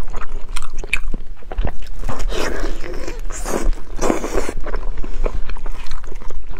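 Close-miked chewing and biting of braised meat, with many small irregular mouth clicks and bites and the sound of gloved hands tearing the pieces apart.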